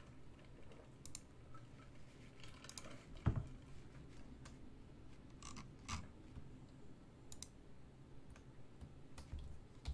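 Faint, scattered clicks of a computer mouse and keyboard, a second or two apart, the loudest about three seconds in.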